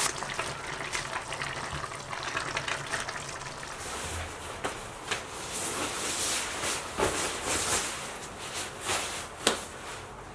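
A puffy nylon down jacket rustling and swishing as it is pulled on and adjusted, with a few sharp clicks along the way.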